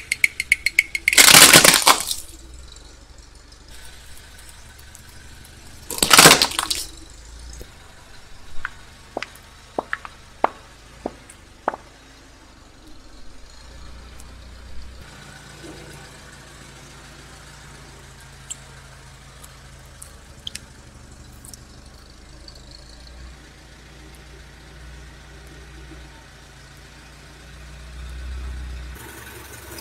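Car tyre rolling over and crushing a hard plastic toy: a quick run of clicks, then loud cracking about a second in and again about six seconds in, followed by a string of sharp snaps. After that comes a quieter stretch of soft squishing with a low steady hum and scattered faint clicks.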